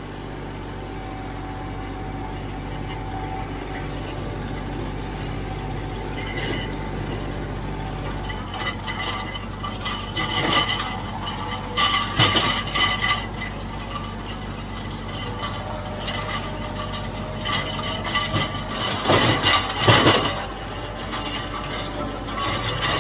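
Kioti CK3510SE tractor's diesel engine running steadily under work, with the low engine note shifting about eight seconds in. Over it come irregular bursts of rattling and clinking, around ten to thirteen seconds in and again near the end.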